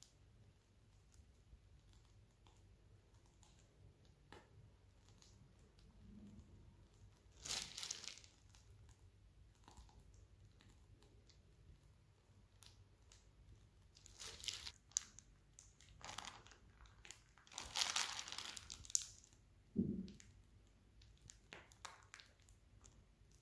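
A piping bag crinkling and rustling in the hands as it is squeezed to pipe cream, in several short bursts, most of them in the second half, with a soft bump near the end.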